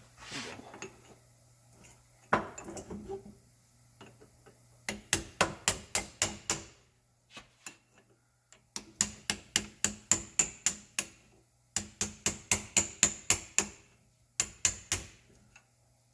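Hammer tapping on steel to drive out a front disc-brake caliper's retaining pins and clips. The quick, ringing taps come in four runs, about four or five a second, starting about five seconds in.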